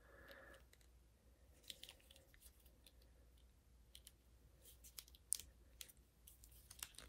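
Faint, scattered clicks and light handling noise from a plastic action figure being turned and posed in the hands, its joints moved.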